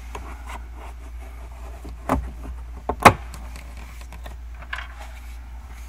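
Plastic carpet plug being pried out with a plastic trim pry tool: light scraping and two sharp plastic clicks about a second apart, the second the louder.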